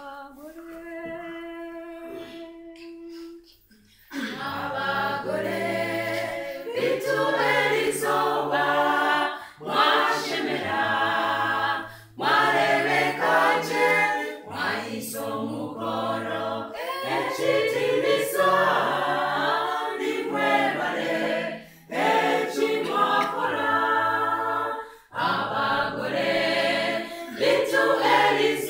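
Mixed choir of women and men singing a cappella in harmony, with no instruments. A single steady held note sounds first, and the full choir comes in about four seconds in, pausing briefly between phrases.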